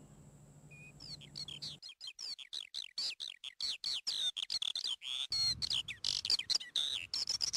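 Birds chirping in a rapid run of short, high, sliding notes, starting about a second in.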